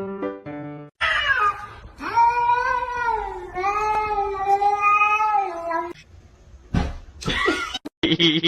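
A domestic cat meowing in long, drawn-out calls whose pitch wavers, after about a second of piano music that cuts off.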